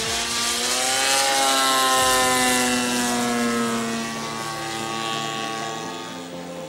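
DLE 60cc twin-cylinder two-stroke petrol engine of a radio-controlled Extra 330 aerobatic model, running in flight and spinning a 23x8 propeller. Its pitch climbs over the first second or so and then slowly sinks. It is loudest about two seconds in and fades toward the end.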